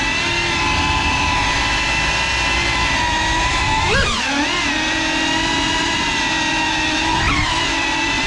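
Motors and ducted propellers of a 3.5-inch cinewhoop FPV drone whining steadily in flight. The pitch jumps sharply up and falls back as the throttle is punched, about four seconds in and again near the end.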